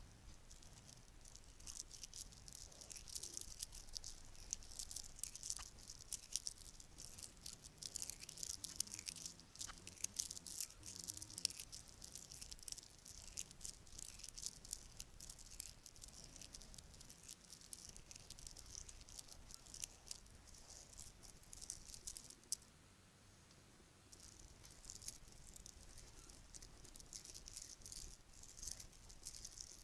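Bracelets rattling and clinking together in a dense, continuous stream of small metallic-sounding clicks, with a brief lull about three-quarters of the way through.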